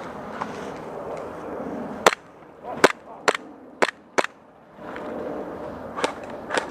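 Airsoft guns firing single shots: five sharp snaps spread over about two seconds, then a few more near the end.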